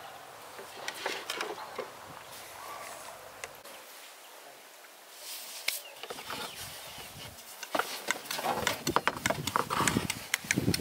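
Long wooden rolling pin rolling out a round of dough on a floured wooden board: a run of quick wooden knocks and rubbing that grows louder about eight seconds in. Before that, softer handling sounds as the dough ball is pressed flat by hand.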